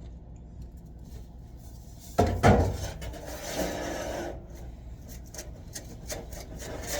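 A knock about two seconds in, then about two seconds of scraping and rubbing, over a low steady hum.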